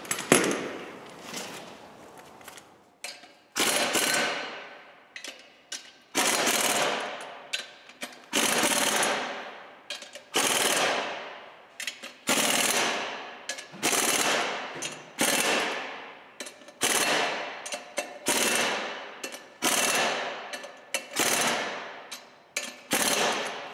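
Pneumatic impact wrench hammering the clutch pressure-plate bolts onto the flywheel of a Ford 1.4 TDCi diesel engine. It comes in about a dozen short bursts, each starting sharply and tailing off. The bolts are being run in with the air gun rather than torqued to spec with a torque wrench.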